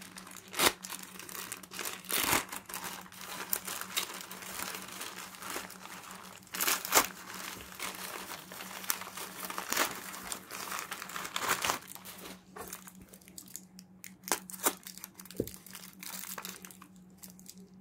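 A parcel's packaging being opened by hand: irregular crinkling and crackling, with occasional tearing and a few sharper cracks.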